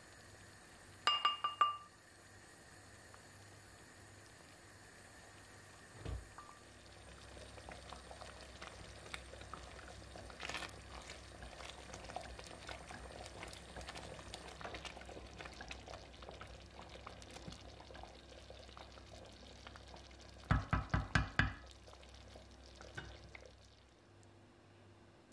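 Thick sugar syrup with watermelon rind simmering and bubbling in a pot while a wooden spoon stirs it. Quick knocks of the spoon against the pot come about a second in and again near the end, a run of about six.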